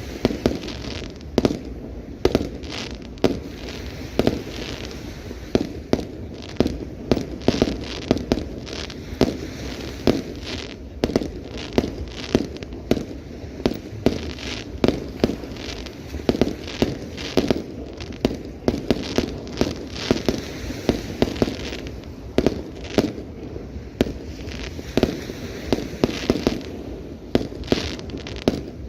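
Fireworks display: aerial shells bursting in a rapid, continuous series of sharp bangs and crackles, several a second, over a steady low rumble of echoing booms.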